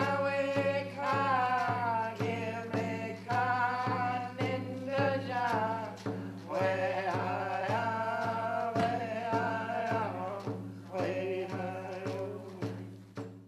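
Closing music: a chanted, sung vocal line over a steady low drone and an even beat, fading out at the end.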